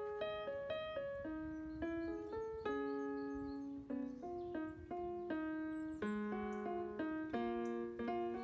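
Background music played on an electronic keyboard with a piano sound: a gentle melody of single notes and chords, each note struck and fading.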